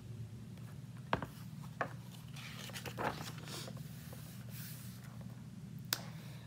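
Pages of a large picture book being turned: soft paper rustling with a few light clicks, over a steady low room hum.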